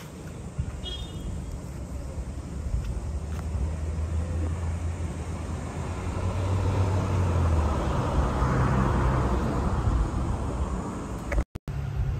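A motor vehicle passing close by: a low engine rumble with tyre and road noise that swells over several seconds and is loudest a few seconds before the end, then breaks off briefly.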